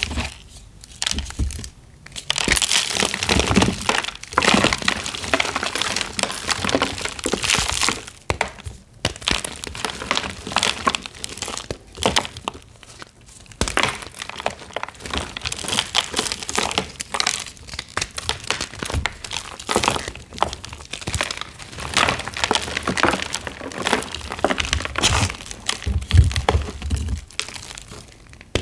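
Reformed gym chalk blocks being crushed and crumbled, an extra crunchy, dense crackling with brief pauses between squeezes.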